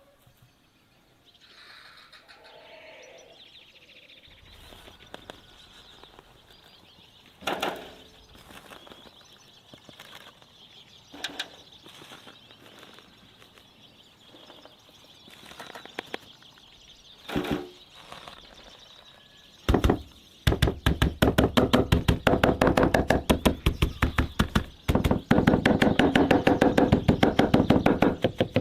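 A knife chopping rapidly on a cutting board, several strokes a second, starting about two-thirds of the way in after a few scattered single knocks.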